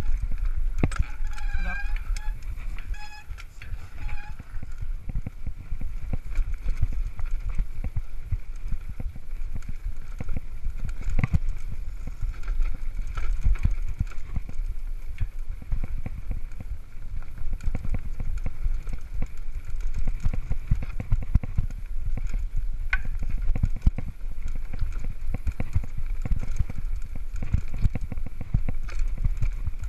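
Mountain bike riding down a rough dry dirt singletrack: steady rattling and knocking from the bike and camera over the bumps, with low wind rumble on the microphone. A few short squeaks come between about one and four seconds in.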